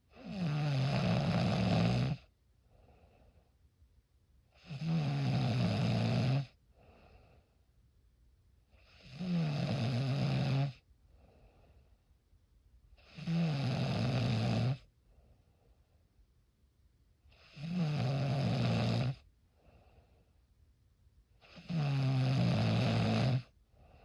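A person snoring in a steady rhythm: six loud snores about four seconds apart, each lasting about a second and a half, with soft breathing between them.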